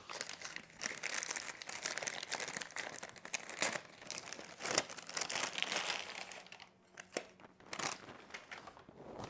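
Brown paper wrapping of a takeaway food package being unwrapped: paper crinkling and rustling, dying down to a few faint rustles after about six and a half seconds.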